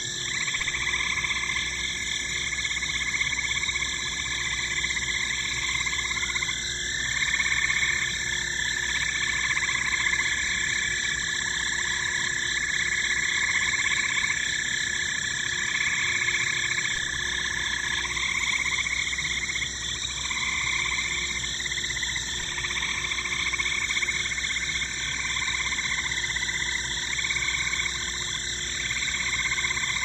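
Chorus of frogs calling, their croaks repeating about once a second over a continuous high trill. A steady high note runs through the middle of the stretch, from about 6 to 18 seconds.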